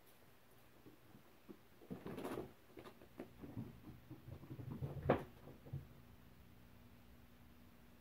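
Two kittens scuffling and play-fighting on a carpeted stair: a few seconds of soft thumps and rustles, with one sharper knock about five seconds in.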